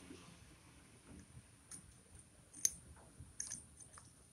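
Faint metallic clicks and ticks as a piston ring is worked into its groove on a Bajaj CT 100 piston by hand. There are a few scattered clicks, the sharpest a little past the middle, and a quick run of small ticks near the end.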